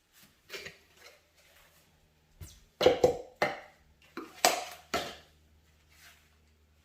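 Stove or oven being cleaned by hand: a series of short, sharp scrubbing strokes, loudest around three and four and a half seconds in.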